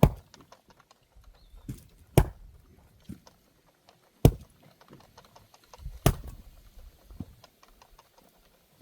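Axe blows splitting firewood logs: a series of sharp, loud chops about every two seconds, with lighter knocks of wood between them.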